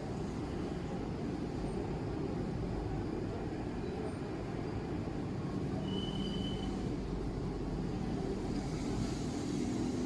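Steady low rumbling background noise, with a brief faint high tone about six seconds in.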